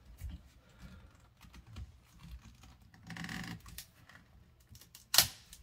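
Hand-held ratcheting PVC pipe cutter clicking as it is squeezed around a 3/4-inch PVC condensate drain line, with a brief rustling scrape about three seconds in and one loud sharp snap about five seconds in.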